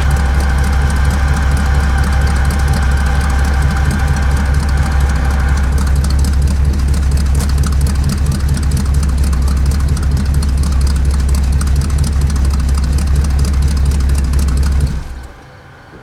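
Truck engine idling steadily, with a higher steady tone over it that fades out about six seconds in; near the end the engine is shut off and the sound drops away suddenly.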